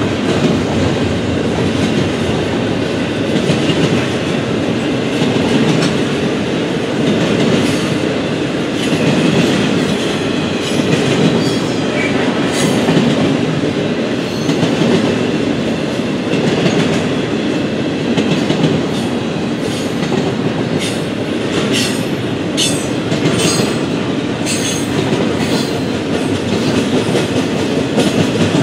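Double-stack intermodal container train rolling past: a steady heavy rumble and clatter of steel wheels on rail. In the second half come short, sharp, high-pitched wheel squeals and clanks.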